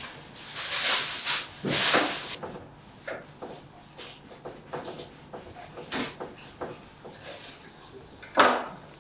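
Hands pulling and rustling strands of cotton twine on a wooden tabletop: a few rustling swishes at first, then small clicks and rubs, and one sharp knock near the end.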